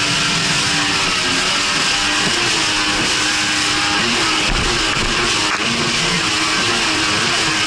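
Jet ski engine running at speed, its pitch shifting now and then, under a steady rush of wind and spray on a camera mounted to the craft.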